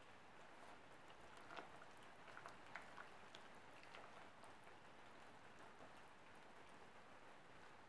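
Faint wet clicks and squelches of a silicone whisk stirring runny chocolate cake batter in a ceramic mixing bowl, a handful of them, mostly in the first half, over a steady low hiss.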